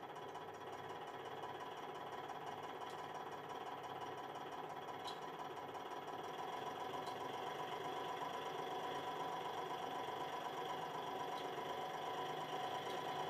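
Hydraulic press pump running with a steady hum, growing gradually louder as it builds pressure on a mechanical bottle jack, the load climbing to about 14 tonnes. A few faint ticks sound over it.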